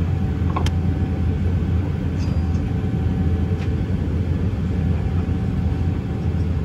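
Steady low rumble inside the cabin of an Airbus A319-132 as it is pushed back from the gate, with a faint steady tone above it and a single brief click about half a second in.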